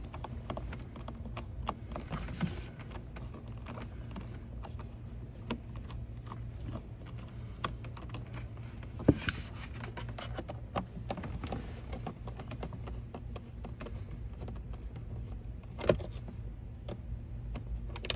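Hand screwdriver backing out the Torx 20 screws that hold a car's glove box in place: a scattered run of small light clicks and ticks, with two louder sharp clicks about nine and sixteen seconds in.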